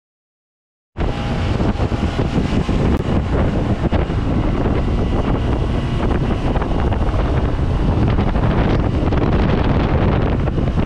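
Heavy wind buffeting the microphone aboard a pontoon boat running under way, with the boat's motor and rushing water beneath it. The sound starts abruptly about a second in and then holds steady.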